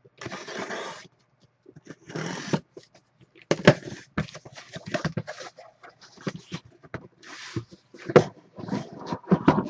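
Packing tape on a sealed cardboard case being cut and pulled open, with two stretches of tearing noise in the first three seconds. Then cardboard flaps and the carton being handled, with many short knocks and scrapes.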